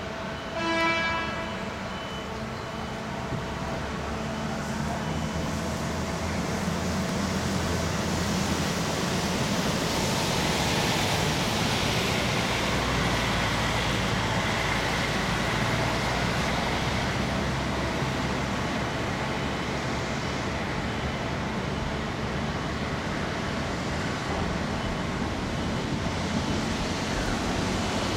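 Steady harbour waterfront noise, a low rumble under an even hiss, with a short horn toot about a second in.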